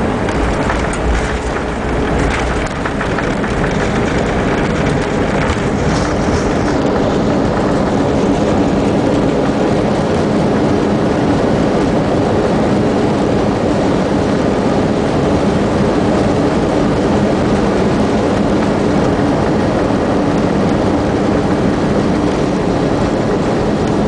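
Airbus A320 cabin noise while rolling along the runway after landing: steady engine and airflow noise with the rumble of the landing gear on the concrete pavement, plus a few knocks and a deeper rumble in the first few seconds.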